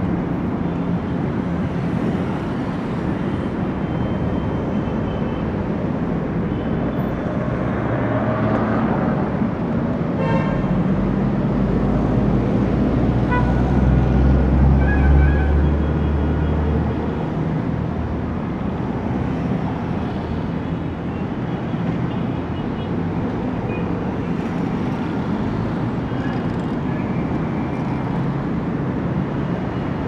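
Busy city street traffic: a steady wash of passing cars and tyre noise. About halfway through, a deep engine rumble swells for a few seconds and fades, with a brief car horn toot or two.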